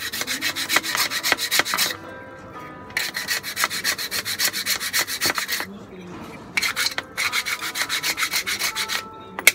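Hand file scraping corrosion and dirt off the steel plate inside a motorcycle horn that has stopped sounding. The file moves in quick back-and-forth strokes, about five a second, in three runs with short pauses between them.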